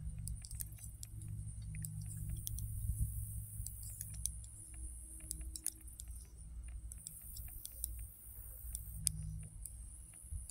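Knitting needles clicking and tapping together in quick, irregular ticks as stitches are worked, over a low steady rumble.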